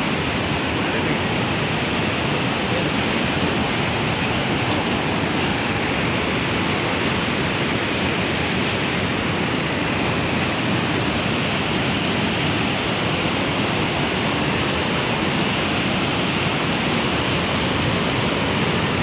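Steady rushing of a muddy river in spate pouring over a concrete weir.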